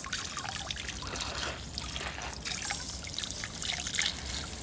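Water trickling and splashing irregularly over a chicken's foot as the abscessed foot is rinsed clean.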